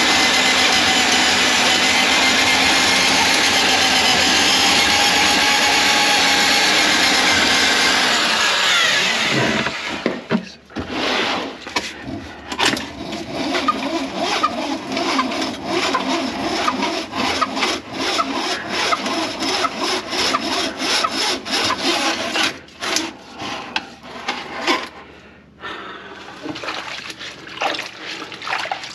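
An electric drain auger's motor runs steadily, clearing a grease-clogged kitchen drain line, then winds down about nine seconds in. After that comes a long run of rapid, irregular clicking and scraping as the auger cable works in the pipe.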